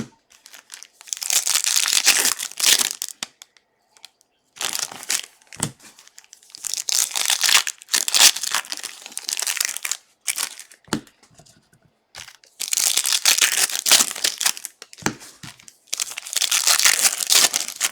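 Foil trading-card pack wrappers crinkling and tearing in repeated bursts of a second or more, as packs are ripped open and the wrappers crumpled.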